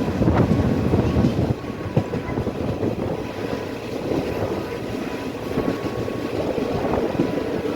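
Passenger train running along the rails: a steady rumble with a few sharp clicks.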